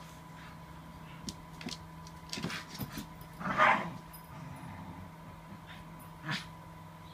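A dog gives one short, loud cry about halfway through, amid a few small taps and rustles of dogs moving about in their beds, with another short sharp sound near the end.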